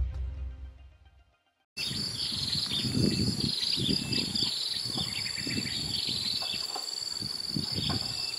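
Intro music fading out, then a short silence. After that, outdoor ambience: a steady high-pitched insect drone with short bird chirps and some faint low rumbling.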